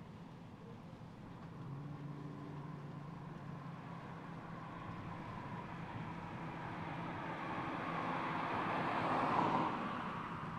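MINI Cooper Convertible driving past, its engine and tyre noise growing steadily louder as it approaches. It peaks about nine seconds in as it passes, then falls away.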